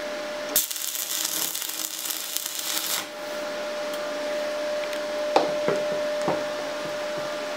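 Stick-welding (MMA) arc from a 6013 general-purpose electrode on an RTEC MIG 180 inverter welder: the arc strikes about half a second in and runs as a steady hiss for about two and a half seconds, then cuts off abruptly. A steady thin tone runs underneath throughout, and a few light knocks come near the end.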